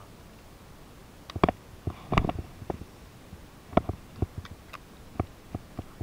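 Irregular clicks and knocks of hands handling a baitcasting reel and fishing rod close to the microphone, loudest in a cluster about one and a half to two and a half seconds in.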